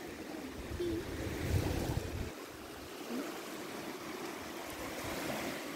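Sea waves washing onto the shore, a steady surf noise that swells about one to two seconds in, with low wind rumble on the microphone.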